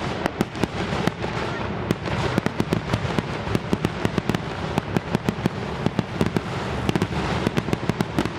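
Fireworks crackling: a dense, irregular run of sharp pops and cracks, several a second, over a continuous rumble.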